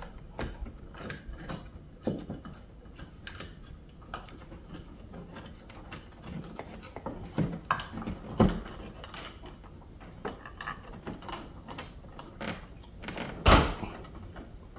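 An electrical switch box and its cables being handled and pushed into a hole in the wall: scattered clicks, rustles and knocks, the loudest knock about thirteen and a half seconds in.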